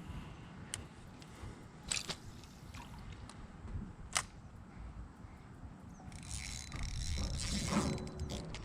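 A few sharp clicks from fishing tackle, then from about six seconds in a rising splashy rush of water as a hooked fish, a redear sunfish, is brought in.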